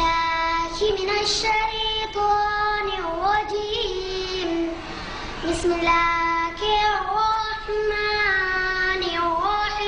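A young girl's solo voice chanting melodically, holding long notes and sliding in pitch between them, with a short pause about halfway through.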